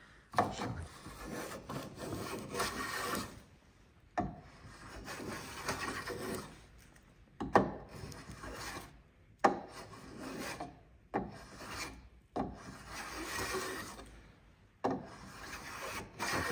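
Side rebate plane cutting along the side wall of a groove in timber, shaving wood away to widen the groove. About eight separate strokes, each one to three seconds long and starting sharply, with short pauses between them.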